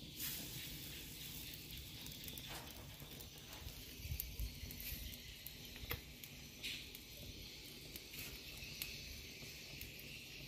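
Faint hiss and scattered small crackles of a mangrove charcoal fire under a wire grill with chicken on it, with a few louder pops in the middle.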